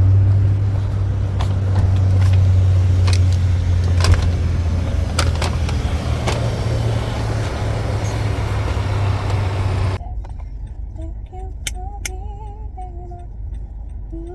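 Car cabin noise while driving: a steady low engine and road rumble with a few scattered clicks. About ten seconds in, the sound cuts off abruptly to a quieter, muffled drone with faint wavering tones.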